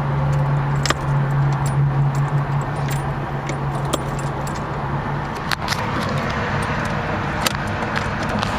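BMW 2002's four-cylinder engine idling steadily, with a few sharp clicks scattered over the steady hum.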